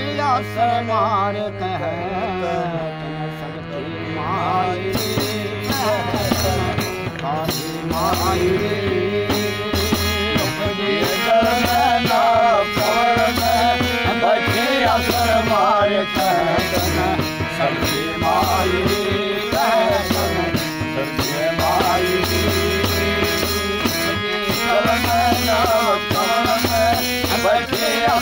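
Harmonium and hand drum accompanying a man singing a Hindi devotional song to the Mother Goddess (a Mata ki bhent). The harmonium holds steady chords under the sung melody, and the drum's beat grows stronger about five seconds in.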